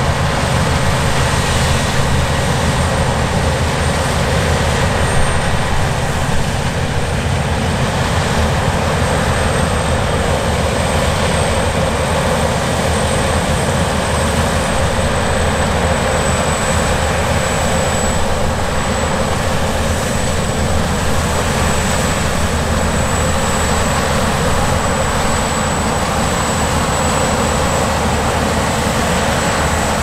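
Claas Lexion 770 TT combine harvester running under load while cutting and threshing rapeseed: a steady engine and machinery drone with a thin high whine that drifts slightly lower.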